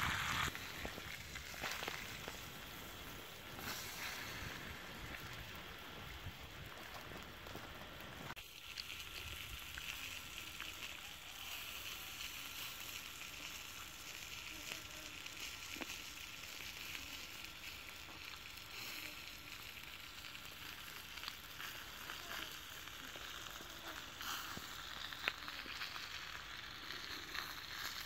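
Duck meat sizzling on a hot stone over a wood fire: a steady sizzle with a few faint crackles.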